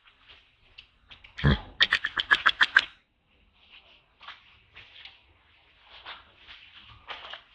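Macaque giving a quick series of about eight harsh, pulsed calls, starting about a second and a half in and lasting about a second and a half. Faint scattered sounds come before and after.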